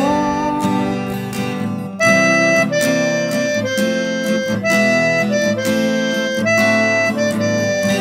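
Instrumental passage of the song: acoustic guitar strumming under a reedy lead melody of held notes. The melody steps down in a phrase that repeats about halfway through, and a last held sung note fades in the first second.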